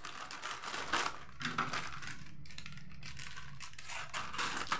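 A plastic snack packet crinkling and crackling as hands handle it, then scissors snipping across the top of the packet near the end.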